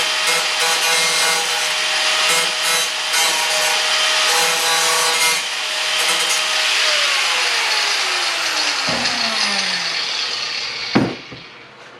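Power tool cutting, a steady whine over a harsh rasping noise. Its pitch falls away over several seconds from about seven seconds in, then a sharp knock about eleven seconds in, after which the noise stops.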